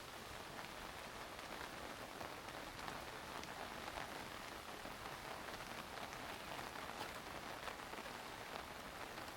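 Steady summer rain falling, with many small drop impacts ticking through the even hiss.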